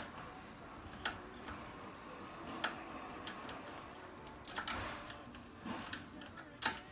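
A handful of sharp, separate metal clicks and taps, with the loudest near the end: an Allen wrench and screws being worked on a Segway Ninebot ES2 kick scooter.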